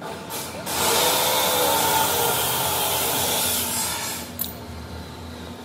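A loud, steady rushing hiss from a workshop tool, starting just under a second in and dying away about three seconds later.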